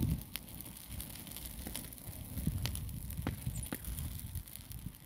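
Open fire of pine needles and brush crackling, with a handful of sharp pops scattered through it as the oil-laden needles catch, over a low rumble of wind on the microphone.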